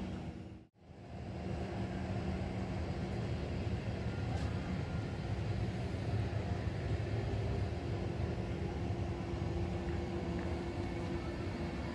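Intercity train of white coaches hauled by an electric locomotive rolling along the platform track: a steady rumble of wheels with a low, even hum. The sound drops out briefly just under a second in.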